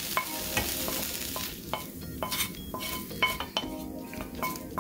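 Wooden spoon scraping and knocking against a stainless steel frying pan as sautéed vegetables are pushed out into a dish, the pan ringing briefly after each knock. A faint sizzle from the hot pan fades out about a second and a half in.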